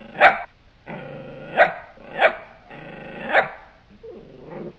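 A dog barking four sharp times, with drawn-out growls between the barks.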